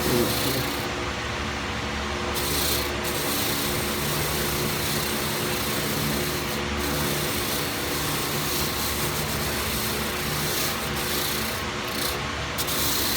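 Motor-driven wire wheel running steadily while rusty, pitted steel lineman's pliers are held against it, a continuous scratchy scrubbing over the motor's hum as the rust is brushed off.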